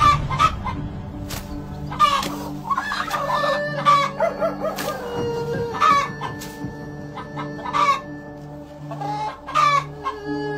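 Chicken clucking and squawking in a string of short, sharp calls at irregular intervals, over steady held tones.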